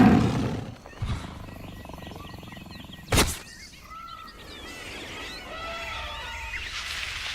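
Birds chirping, with a sharp knock about three seconds in.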